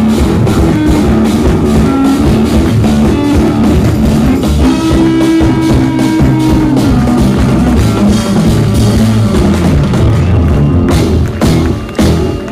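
Jazz-fusion band playing loudly live: drum kit, electric bass, guitars and keyboards. Near the end the music breaks into short stop-start hits.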